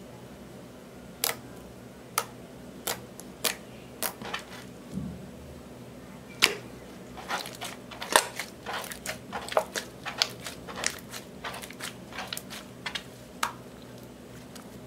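Slime tinted with gold and purple eyeshadow being folded and squeezed by hand, giving sharp popping clicks. A few come singly at first; from about seven seconds in they come quickly, several a second.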